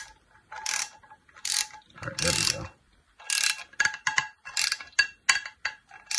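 Quarter-inch mini ratchet working back and forth: each return swing gives a short burst of rapid pawl clicks, about ten bursts, coming faster in the second half, as it drives in the screw of a loose frying-pan handle.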